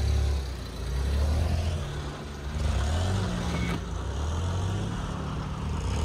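Suzuki Carry mini truck's small engine pulling under load in its extra-low granny gear as the truck crawls over rough ground, the revs rising and falling.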